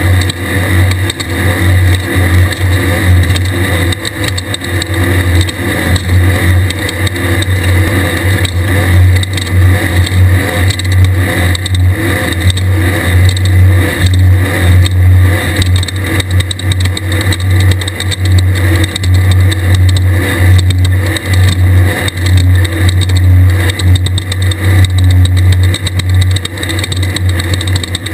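Air-cooled Volkswagen flat-four engine of a Class 1600 desert race buggy running hard and steady, with a constant low drone and loudness that flutters throughout.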